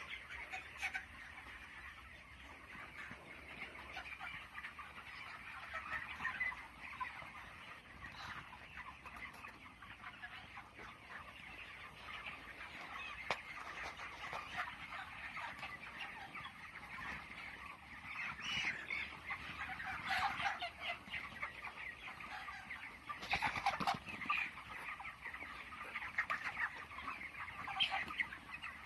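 A large flock of young broiler chickens, about three weeks old, calling together in a steady din of many overlapping chirps and clucks. Louder clusters of calls come about two-thirds of the way in and again near the end.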